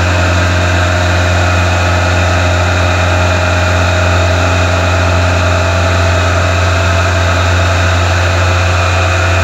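Steady, loud machine drone from the electric pumps and motors of a wastewater aeration tank, with a strong low hum and several steady higher tones that do not change.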